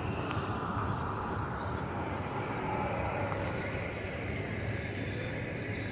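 City street traffic: cars driving by slowly, heard as a steady low rumble of engines and tyres.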